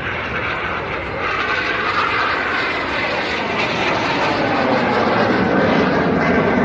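Fixed-wing aircraft flying past, its engine noise sweeping down in pitch and growing a little louder toward the end.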